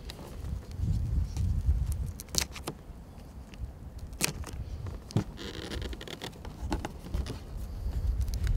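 Metallic tape being worked around the hatch seam of an RC speedboat: a few sharp crinkles and clicks, and a short rasp a little past the middle, over a steady low rumble.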